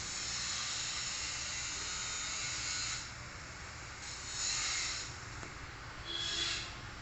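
Road traffic noise: a steady hissing rush of passing vehicles that eases off about three seconds in, then swells twice more.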